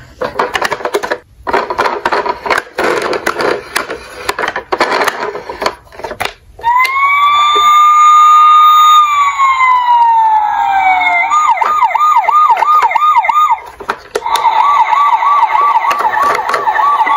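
Plastic toy cars clattering as they are handled in a cardboard box. About seven seconds in, the Tonka toy police car's electronic siren starts: a held wail that falls in pitch, then a rapid warbling yelp, which stops briefly and resumes faster.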